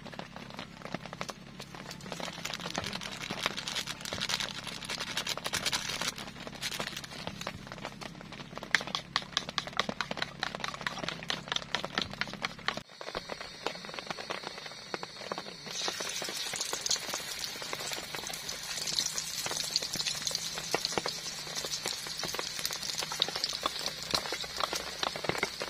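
A metal spoon beating eggs in a plastic bowl, a rapid run of clicks and scrapes. Partway through this gives way to beaten egg frying in hot oil in a pan: a steady sizzle with crackling.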